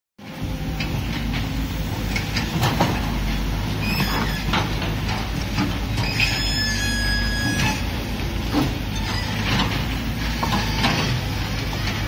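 Caterpillar 320C hydraulic excavator at work: its six-cylinder diesel engine runs steadily, with irregular clanks as the bucket strikes dirt and debris, and a brief high squeal about six seconds in.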